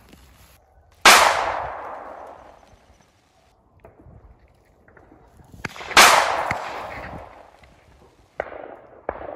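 Two shotgun shots about five seconds apart, each a sharp blast followed by an echo that fades over a second or more; a few lighter knocks near the end.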